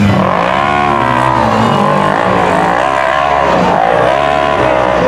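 Rock bouncer buggy's engine revving hard under load as it climbs a steep rocky hill, the revs surging up and falling back about once a second.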